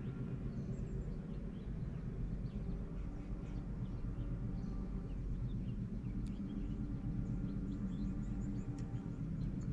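Steady low engine drone, with small birds chirping over it.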